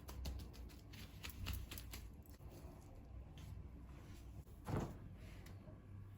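Small clicks and light rustling of objects being handled, thick in the first two seconds and sparser after, with one louder knock nearly five seconds in.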